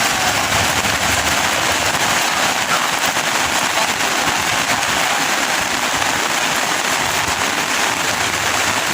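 Heavy rain pouring down, a dense steady patter with a fine crackle.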